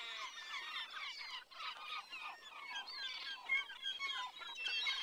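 A flock of birds chirping and twittering, many short calls overlapping in a dense, continuous chatter.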